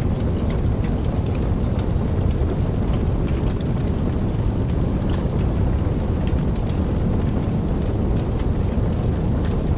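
Wood fire burning: a steady low rumble of flames with frequent small, soft crackles and pops of burning wood.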